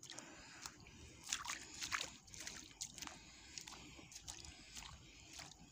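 Faint, irregular sloshing and small splashes of feet wading through shallow seawater, with a few louder splashes about one to two seconds in.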